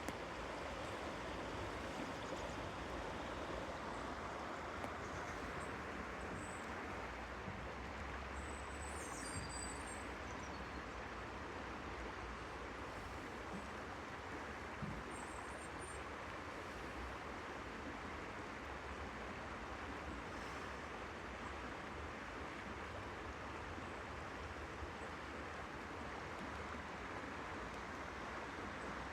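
Steady rush of flowing stream water, with a few short high bird chirps about six, nine and fifteen seconds in.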